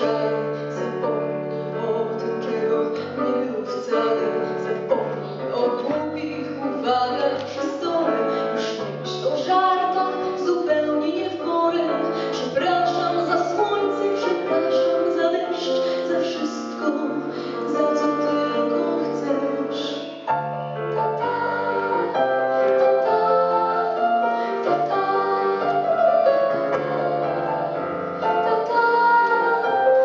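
A young woman singing a slow song in Polish into a microphone, over instrumental accompaniment.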